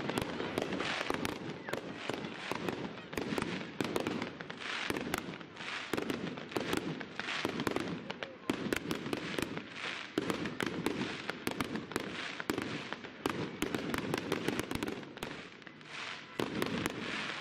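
Fireworks display: a rapid, continuous run of bangs and crackles from aerial shells bursting overhead, with a brief lull near the end.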